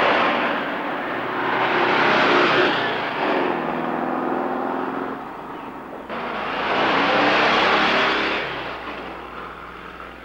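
A car driving past: engine and road noise swell and fade, with the engine tone falling after the first pass. A second swell begins abruptly about six seconds in and dies away near the end.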